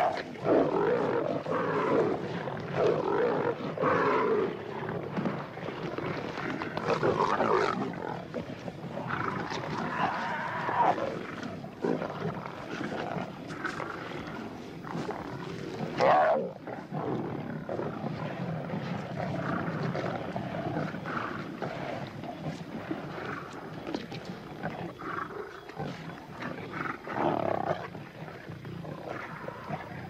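A pride of lions feeding on a wildebeest kill, growling and snarling over the carcass as they compete for the choicest portions. The snarling comes in uneven surges, with one of the loudest outbursts about halfway through.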